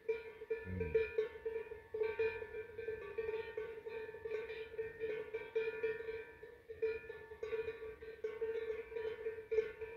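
Cowbells on grazing cattle clanging continuously and irregularly, many bells ringing together. A brief low falling sound comes about a second in.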